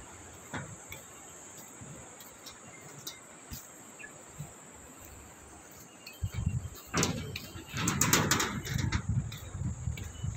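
Outdoor jungle-edge ambience: a steady high insect hiss with a few faint bird chirps. About six seconds in, a louder low rumbling and knocking noise starts and lasts to the end, with a cluster of sharp clicks near the end.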